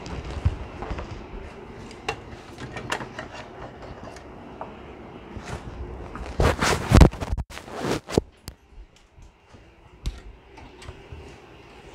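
Handling noise as a heavy printer and its packaging are moved about: scattered knocks and scrapes, a loud burst of thumps and rustling about six and a half seconds in, then a few sharp clicks.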